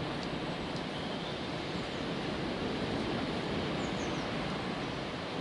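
Steady rushing outdoor ambience in woodland, with a couple of faint, high bird chirps about four seconds in.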